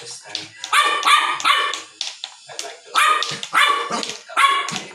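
Small white dog barking repeatedly in play while tussling with a bamboo stick: about six high-pitched barks in quick bunches.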